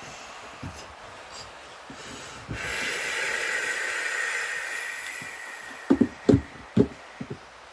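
Close-miked massage sounds: a soft hiss lasting about three seconds, then a quick run of six or seven sharp knocks near the end.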